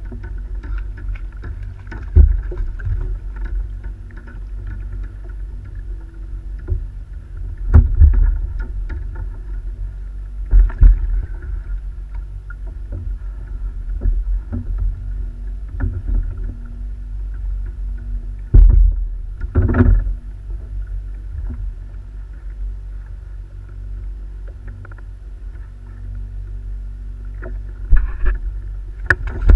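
Sea water sloshing against a plastic sit-on-top kayak hull, with a steady low rumble and a handful of sharp knocks and thumps on the hull as a fish is fought and landed.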